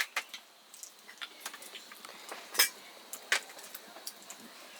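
Scattered light clicks and clinks of eating utensils against dishes during a meal, a dozen or so short ticks with two louder clinks just past the middle.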